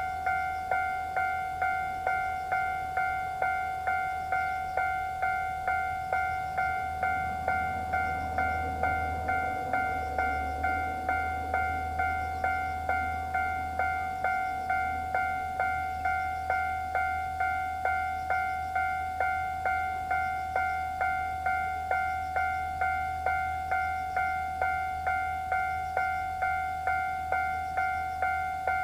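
Japanese railway level-crossing electronic alarm ringing its standard tone, a two-note chime struck in an even rhythm of about one and a half strokes a second. Partway through, a low rumble swells and fades under it as a train passes.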